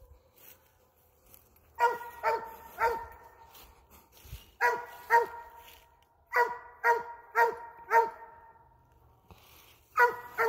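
Hunting hound barking treed, in short repeated barks grouped in bursts of two to four with pauses between: the bark that signals its quarry is up the tree.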